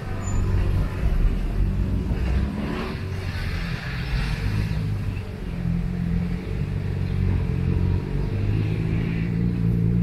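A motor vehicle engine running with a steady low hum, amid street noise.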